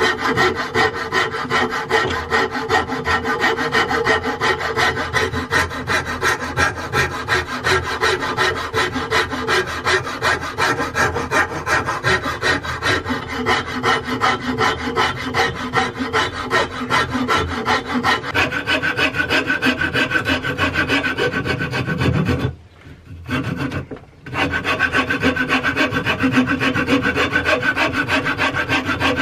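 A flat hand file rasping a wooden handle blank held in a bench vise, in quick, even back-and-forth strokes. It stops briefly about 22 seconds in, then resumes.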